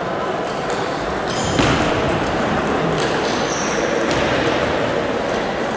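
Table tennis balls clicking off bats and bouncing on tables, a few sharp clicks with one loudest about a second and a half in, over the steady echoing noise of a large sports hall.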